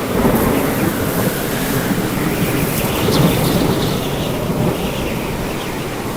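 Violent storm: continuous wind and rain with low thunder, swelling slightly about a third of a second in and again about three seconds in.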